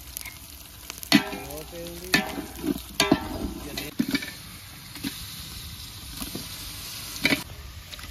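Onions frying in oil in a large aluminium cooking pot, with a steady sizzle. A ladle stirs and knocks sharply against the pot about five times as marinated chicken pieces are tipped in.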